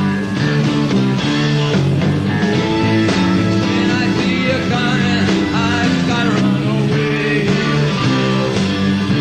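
Live rock band playing, electric guitars over bass and drums.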